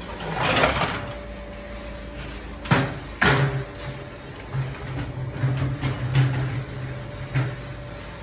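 A heavy Jatco JF011E CVT transmission case being slid and set onto a transmission jack. A scrape comes just under a second in, then two sharp metal clunks close together about three seconds in, followed by a low buzzing hum and a few lighter knocks.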